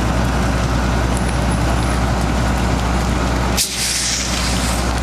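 Fire engine running steadily, a constant low drone, as it pumps water to the hose lines. About three and a half seconds in, a sudden hiss cuts in and fades over about a second.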